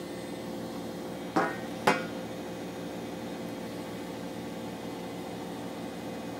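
Bosch WVT 1260 washing machine on its final spin at high speed: a steady hum with a few held tones from the motor and drum. Two sharp knocks come about half a second apart, a little over a second in.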